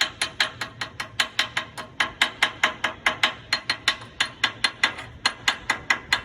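Rapid, even metallic tapping, about five taps a second, each with a short ring.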